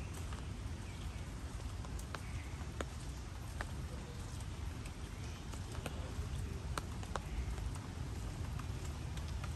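Footsteps on a wet paved garden path after heavy rain, with a low rumble of walking, scattered sharp drips of rainwater at irregular moments and faint bird calls.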